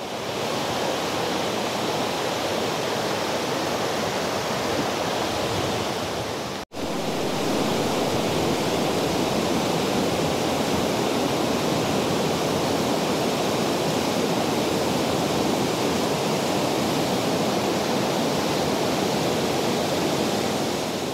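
Rushing water of the East Lyn River where another stream joins it: a steady, even rush, broken by a brief dropout about a third of the way in.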